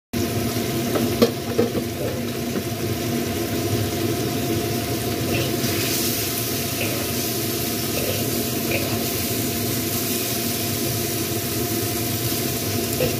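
Water spinach and quail eggs sizzling in a hot wok while a spatula stir-fries them, with steady frying noise and two sharp clicks of the spatula against the wok a little over a second in.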